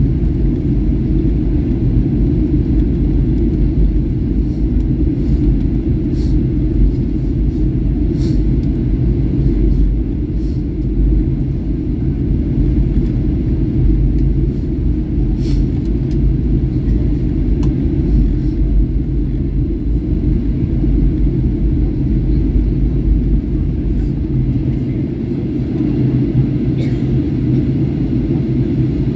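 Steady cabin rumble of a Boeing 737-800 in descent: engine noise and airflow heard inside the cabin from a window seat by the wing, with a few faint clicks now and then.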